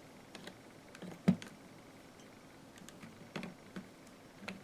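Small parts of an airsoft gun being handled during reassembly: scattered light clicks and taps of plastic and metal, with one sharper click about a second in.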